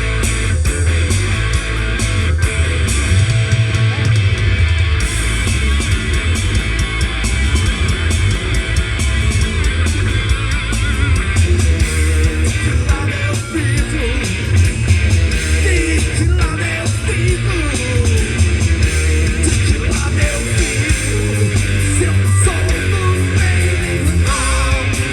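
Rock band playing loud, with distorted electric guitars, bass and drums.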